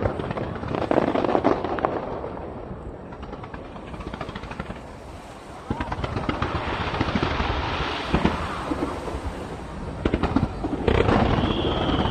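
Aerial fireworks shells bursting, with sharp bangs early on and then a thick spell of crackling from the middle onward. A high whistling tone joins near the end.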